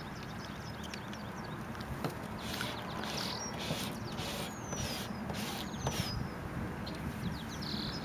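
Paper rustling and crinkling as the transfer sheet of vinyl lettering is lifted and pressed against a vehicle window, in a run of short dry rustles through the middle. Two short high descending chirps come partway through, over a low steady outdoor hum.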